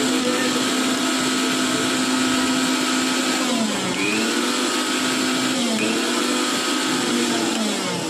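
A small electric appliance motor running at a steady high speed. Its speed sags briefly about four seconds in, and again less deeply near six seconds, before picking back up.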